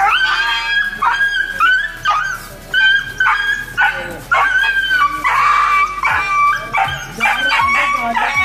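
A stray dog caught on a catch pole yelping and whining in distress: a rapid run of high, drawn-out cries, one after another.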